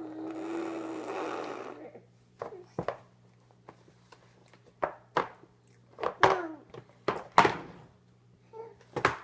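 A baby's drawn-out vocal sound for about two seconds. Then an irregular run of sharp knocks, clacks and short squeaks as a clear plastic storage lid is handled and bumped against a high chair tray.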